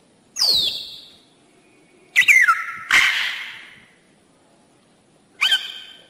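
Parrot calling: a loud whistle falling in pitch, then a falling call followed at once by a harsh squawk about two seconds in, and a short rising call near the end.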